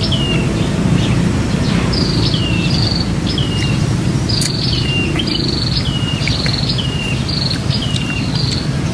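A bird repeating a two-part call, a short high note dropping to a lower one, about once a second, over a steady low rumble.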